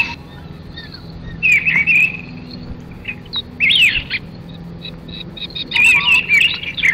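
A bird chirping and twittering in three short bursts of high calls, over a faint steady low hum.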